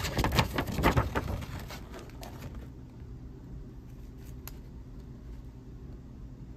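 A printed paper sheet rustling and crackling as it is handled for about the first two seconds, then only a low steady hum with a couple of faint ticks.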